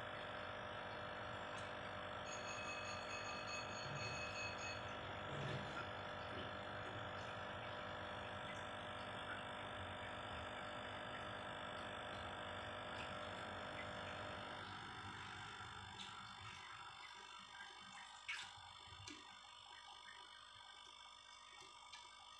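Steady electrical hum made of several held tones. About two-thirds of the way through, its lower part cuts out and a fainter hum remains, with a few light clicks.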